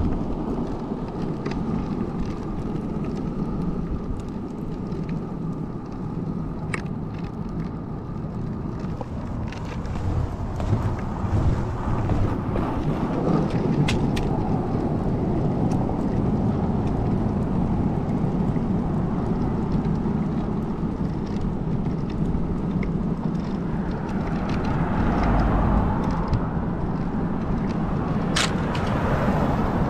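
Magneto longboard's wheels rolling on asphalt, a steady rumble with wind buffeting the microphone, getting somewhat louder about ten seconds in. A few sharp clicks from the wheels hitting small bumps or debris.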